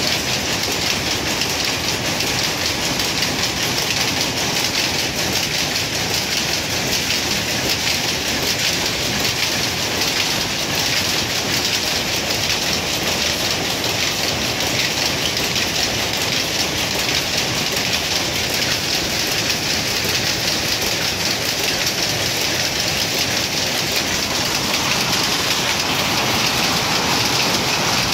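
Power looms running in a weaving shed: a loud, dense, steady clatter of many rapid strokes that never pauses.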